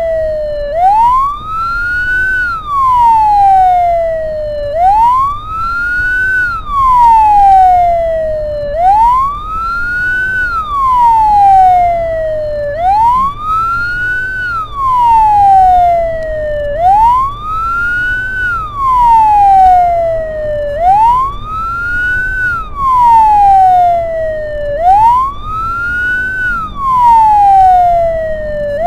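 Ambulance siren wailing, each cycle a quick rise and a slow fall, repeating about every four seconds, over a steady low engine and road rumble.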